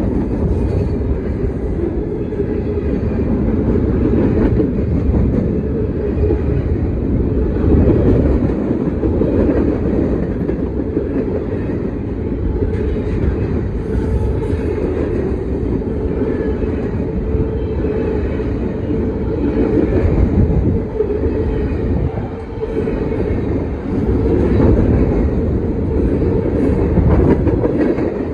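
CSX manifest freight train's cars rolling past close by: a steady, loud rumble of steel wheels on the rails.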